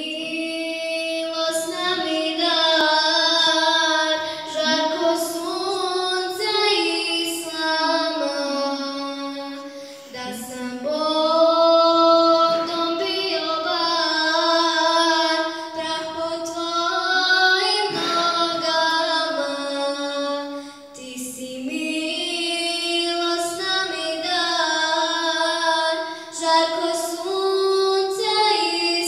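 A young girl singing a Bosnian Islamic devotional song (ilahija) unaccompanied. She sings long, ornamented held notes in phrases, with short breaks for breath about ten seconds in and again past twenty seconds.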